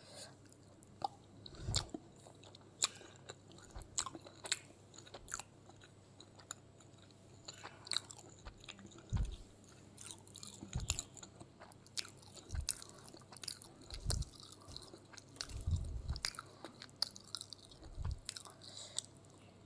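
Eating sounds: irregular crunchy bites and sharp clicks, with a few soft low thumps in between.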